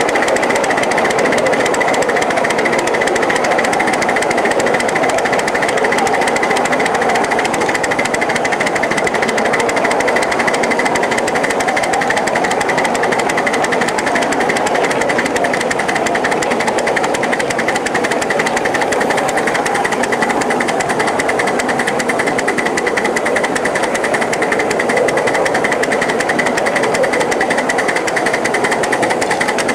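A 1-inch-scale 0-4-0 live steam switcher locomotive running at a steady speed, heard from close behind: an even, fast clatter of exhaust chuffs and wheels on the track that does not let up.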